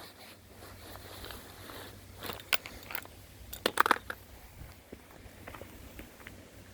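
A few scattered crunching, crackling clicks over a faint low rumble, busiest about two and a half seconds in and again around four seconds in.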